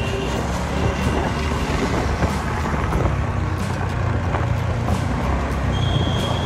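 Road traffic heard from a moving scooter close behind a truck: a steady low engine rumble mixed with road and wind noise.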